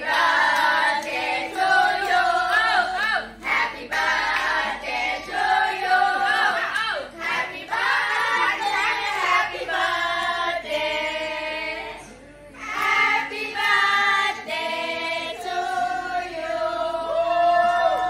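A group of women singing a birthday song together, with some hand clapping. The singing drops off briefly about two-thirds of the way through, then carries on.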